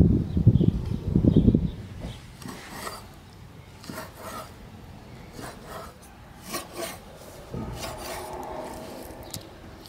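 Large knife working fish fillet on a wooden cutting board: a loud rasping scrape of the blade over the wood for about the first second and a half, then quieter scattered taps as the blade cuts through the fish onto the board.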